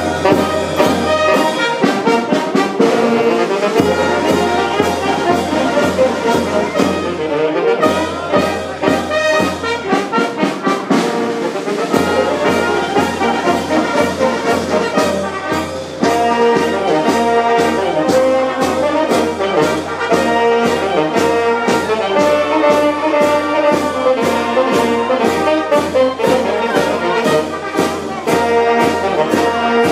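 Brass band playing a march: trumpets and trombones over a steady, even beat.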